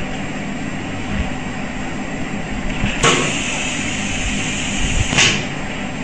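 Automatic through-hole component insertion machine running: a steady mechanical hum with occasional low knocks, and two short hisses about three seconds and about five seconds in.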